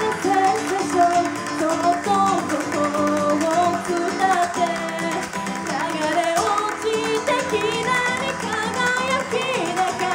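Live Japanese idol pop: a woman singing held, wavering notes into a microphone over instrumental accompaniment with guitar.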